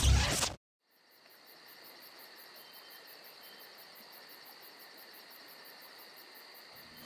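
Crickets chirping faintly and steadily, a high even pulse of about five chirps a second, after music cuts off in the first second.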